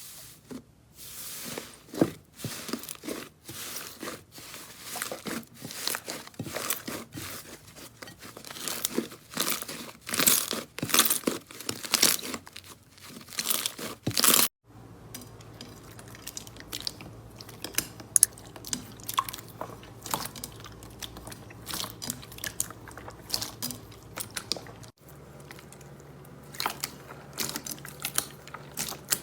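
Crunchy slime being squeezed and pressed, a dense run of crackles and pops. About halfway through the sound cuts to another take where the crackles are sparser and quieter over a low steady hum.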